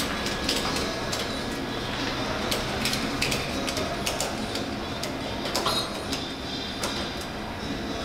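Steady auto-body-shop background hum with scattered light metallic clicks and taps, from sheet-metal panels and tools being handled as a replacement quarter panel is fitted to the car body. The clicks are irregular, with small clusters about two and a half to three and a half seconds in and again around five and a half seconds.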